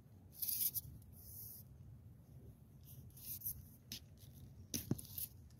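Handling noise from a telescopic tenkara rod being pulled out and its line worked by hand close to the microphone: several short, faint, hissy rustles and scrapes, one every second or so.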